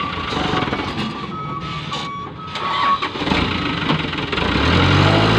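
Dump truck's reversing alarm beeping on and off over its diesel engine running, for about the first three seconds. Near the end the engine revs up.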